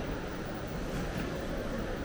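Steady background noise of a busy airport terminal hall: an even low hum with indistinct distant voices mixed in.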